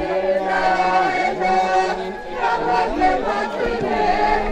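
A group of voices singing a slow song together in chorus, with long held notes.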